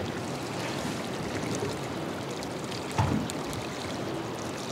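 Sea water sloshing and lapping around a small boat's hull, a steady wash without engine tone. There is one brief louder sound about three seconds in.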